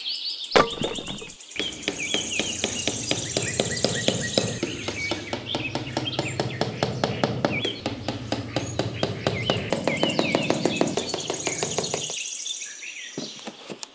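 Birds chirping, with a rapid, even clicking running beneath them. The clicking stops shortly before the end.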